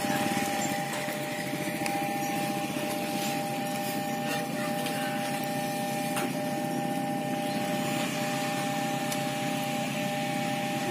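Railway level-crossing warning bell sounding continuously at two steady pitches while the crossing stays closed for an approaching train, with an engine running underneath.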